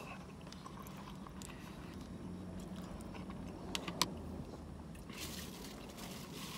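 Faint, soft chewing of a mouthful of sausage patty with gravy and cheesy grits, mouth closed, with a couple of small clicks about four seconds in.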